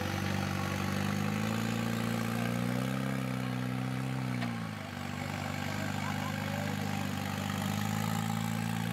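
Rock crawler buggy's engine running under throttle as it climbs a boulder, its pitch rising a little, dropping off briefly about four and a half seconds in, then coming back up and holding steady.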